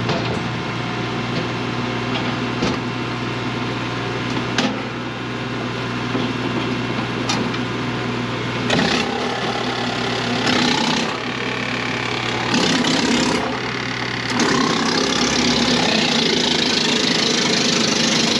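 Woodland Mills WC68 wood chipper, driven off a Massey Ferguson tractor, running with a steady engine hum while brush is fed through it. Branches are chipped in several short bursts midway, then in one long stretch of chipping near the end, with a few sharp cracks earlier on.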